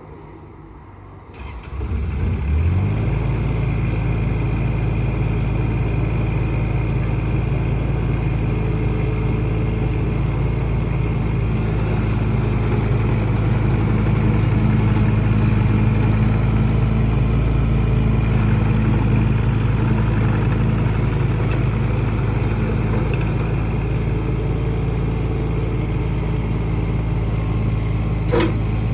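Diesel engine of a 2007 Takeuchi TB014 mini excavator starting up about two seconds in, its pitch rising as it catches, then running steadily.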